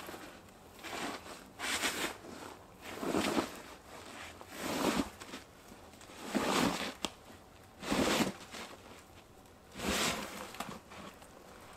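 A backpack being hauled up a granite rock face in a series of pulls, scraping and rustling against the stone about seven times, a second or two apart.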